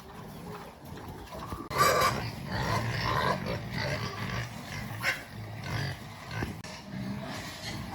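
Pigs calling: a sudden loud burst of calls about two seconds in, then shorter calls on and off.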